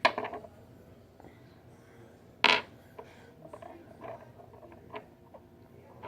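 Small hard clicks and taps of a fidget spinner and its detachable prongs being handled, pulled off and fitted back on, with one louder sharp knock about two and a half seconds in.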